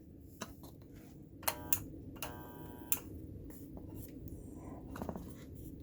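Homemade microwave-transformer spot welder being tried with its welding pen: a low steady hum with sharp clicks as the electrodes touch, and a brief buzz of under a second about two seconds in. The weld is not taking, which the builder puts down to poorly connected cables.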